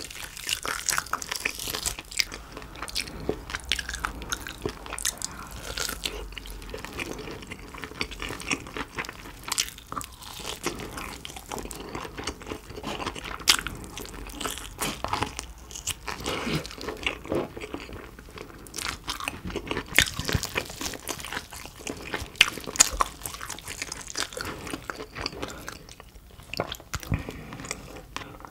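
Close-miked eating of roast pork knuckle and BBQ pork ribs: a steady run of crunchy bites and wet chewing, with many sharp clicks and smacks.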